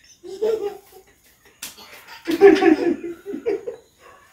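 People laughing in bursts, louder in the second half, with one sharp slap about a second and a half in.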